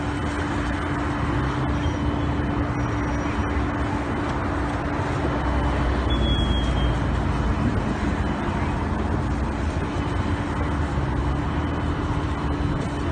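A motor vehicle engine running steadily with a constant hum, under a steady rush of noise.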